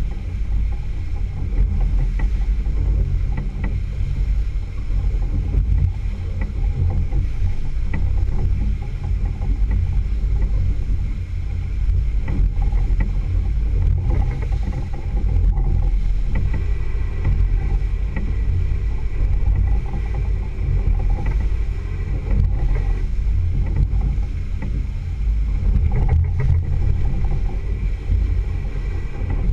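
Single outboard motor running steadily with the boat under way, its hull rushing through choppy water: a loud, even, low rumble throughout.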